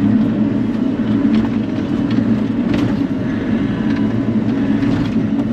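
Bobcat E42 mini excavator's diesel engine running steadily, heard from the cab, with a couple of light knocks.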